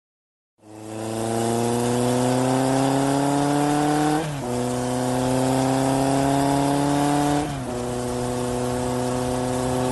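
A vehicle engine pulling hard, starting about half a second in. Its pitch climbs slowly, then drops sharply twice as it shifts up through the gears.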